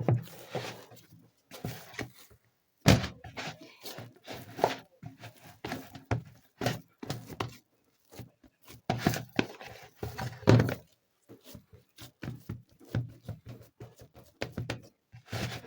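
Mandazi dough being mixed and kneaded by hand in a bowl: an irregular run of soft thuds and knocks as the dough is pressed and turned.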